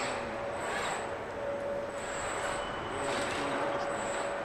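Steady car body-shop machinery noise from the robotic assembly line, with a constant humming tone and a thin high whine over a broad hiss.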